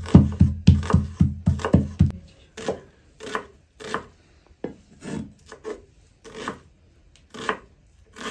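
Kitchen knife dicing an onion on a wooden cutting board: crisp knocks of the blade against the board, about two a second. For roughly the first two seconds a faster beat with deep bass plays along with it, then stops.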